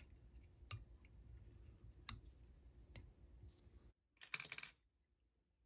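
Near silence with a few faint, light clicks of fly-tying tools as the thread is whip-finished behind the fly's head, then a brief rustle about four seconds in.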